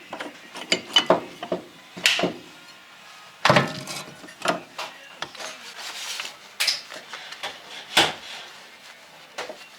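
Irregular metallic clanks and knocks of tools and parts being handled while dismantling a car's front axle differential, with two louder knocks about three and a half seconds in and near the end.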